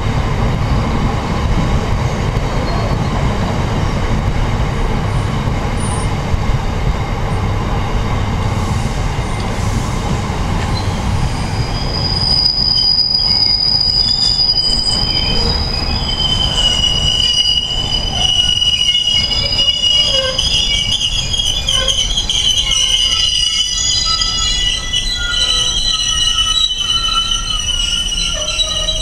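Freight train of open box wagons rolling past close by, a steady heavy rumble of wheels on rail. From about twelve seconds in, high-pitched wheel squeal sets in: several shrill tones that waver and overlap and carry on to the end, while the rumble eases.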